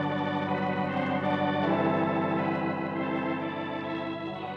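Organ music bridge: sustained chords that change about a second and a half in and again near the end.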